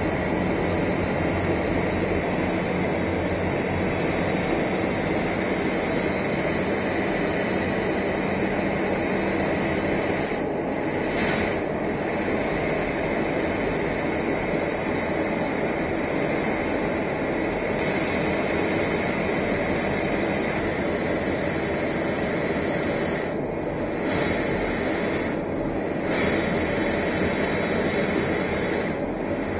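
Steady rushing noise of jet aircraft in flight, dipping briefly a few times.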